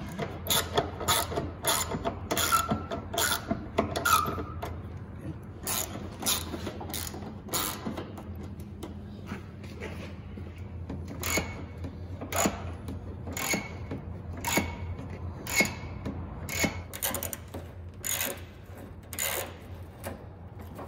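Hand socket ratchet with an extension clicking in repeated short back-swings while turning a fastener, a sharp click every half second or so, pausing briefly midway.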